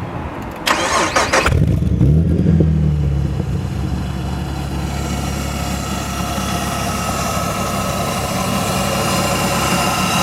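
Supercharged 3.3-litre V6 in a 1971 Datsun 510 being started: a short burst of cranking, the engine catches about a second and a half in, flares up in revs, then settles into a steady idle with a thin steady whine over it.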